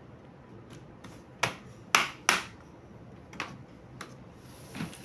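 Plastic retaining clips of an HP 14s laptop's bottom case snapping loose as the case is pried open. There are three sharp, crisp snaps about a second and a half to two and a half seconds in, then a few fainter clicks.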